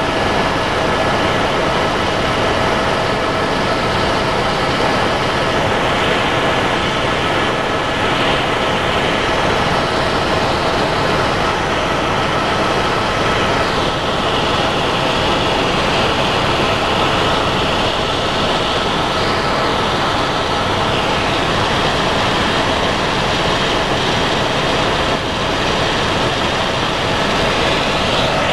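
Helicopter cabin noise in flight: a steady, loud rush of rotor and turbine engine, with a few steady whining tones that hold their pitch.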